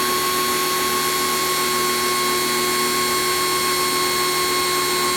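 Kioles 3000 PSI electric pressure washer's motor running on steadily with a high-pitched whine. It does not cut off when the trigger cycles, which the owner takes for a defect in the unit.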